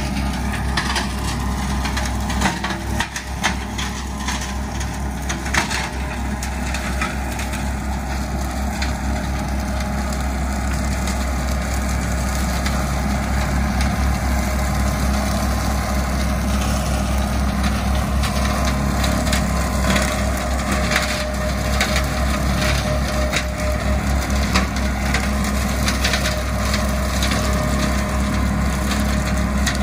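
Compact tractor with a rear-mounted brush mower running steadily while shredding brush and small saplings, with frequent cracking and snapping of wood over the steady engine rumble.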